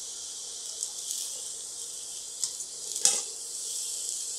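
Fried rice sizzling steadily in a stainless steel wok as it is tossed with a spatula. A few scrapes and taps of the spatula on the pan come through, the loudest about three seconds in.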